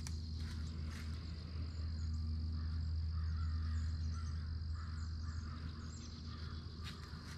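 Quiet outdoor ambience: a steady low hum under a thin steady high-pitched whine, with a few faint high chirps.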